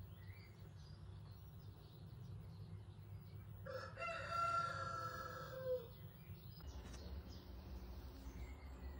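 A rooster crowing once, a call of about two seconds a few seconds in that falls in pitch at the end, over a steady low hum.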